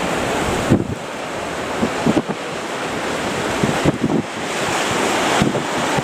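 Strong wind buffeting the microphone over the steady noise of breaking surf, with repeated low gusty thumps.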